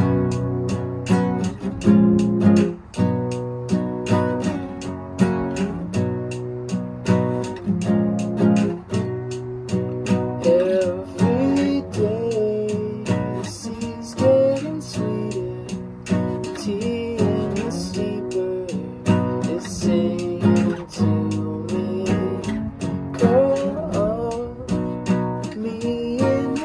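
Acoustic guitar strummed in a steady rhythm, chord after chord. A man's voice sings along in stretches, from about ten seconds in and again near the end.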